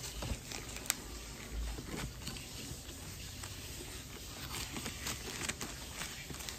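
Scissors cutting through a plastic shipping mailer bag, with the plastic crinkling and rustling as it is held and cut; a sharp tick about a second in.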